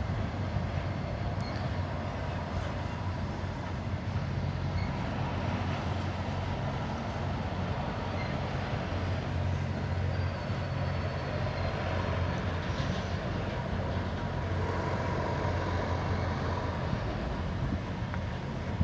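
BNSF intermodal spine cars loaded with truck trailers rolling past, steel wheels on the rails making a steady rumble.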